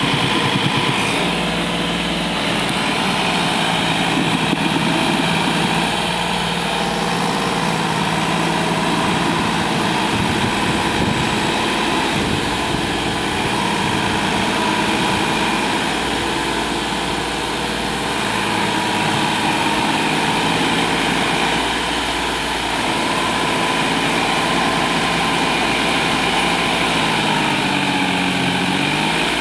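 New Holland 4710 4WD tractor's diesel engine working hard, pulling a trolley loaded with river sand up a dirt slope. Steady running, with the pitch dipping and climbing back near the end.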